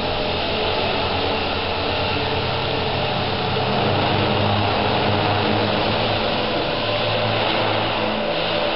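Align T-Rex electric radio-controlled helicopter in flight: a steady whine of its motor and spinning rotor blades, with the pitch stepping up slightly about four seconds in.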